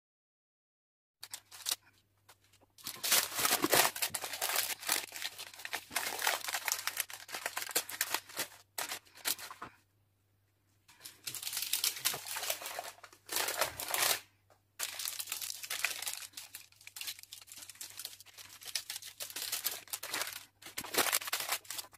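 Baking parchment crinkling and rustling as it is handled and peeled away from freshly baked cloud bread, in several long stretches with short pauses between them.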